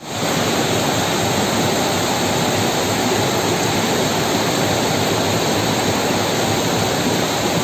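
Steady, even rushing of water, starting abruptly and holding at one level throughout.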